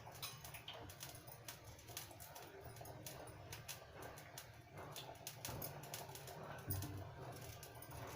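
Knife cutting ginger into small pieces: a run of faint, irregular clicks, several a second.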